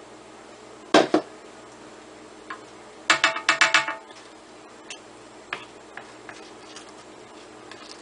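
Kitchen utensils knocking against a stainless steel stand-mixer bowl while dough is worked: one sharp knock about a second in, then a quick run of about six clinks with a short metallic ring, and a few faint clicks after.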